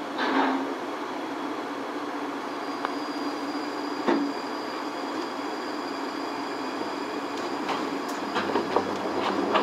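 A Skyrail rope-driven suspended car running along its elevated guideway: a steady rumbling hiss of travel broken by a sharp knock about four seconds in and a string of clacks near the end, with a thin high whine from about two seconds in.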